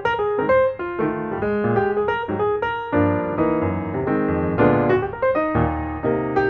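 Background piano music: a steady run of notes over a lower bass line.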